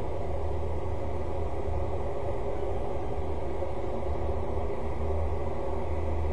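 Steady low rumble with a faint hiss over it, unchanging in level.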